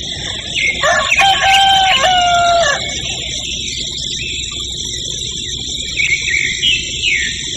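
A rooster crowing once, a single cock-a-doodle-doo of about two seconds, over a steady high-pitched background hiss. A few short chirps follow near the end.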